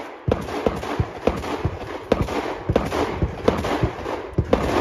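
Rapid shotgun fire, a quick string of sharp shots at about two to three a second, each with a short ringing tail.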